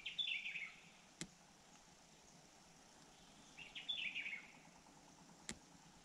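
A small songbird calling: two short bursts of quick chattering notes that fall in pitch, about three and a half seconds apart. Two sharp clicks, one after each burst.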